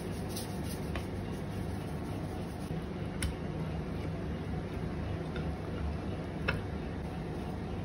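A hand rubbing raw milkfish steaks on a plate: soft wet handling, with about three sharp clicks spread through it, over a steady low hum.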